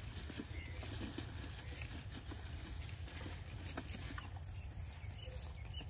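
Faint outdoor ambience: a steady low rumble with a few faint scattered clicks and a thin high tone that comes and goes.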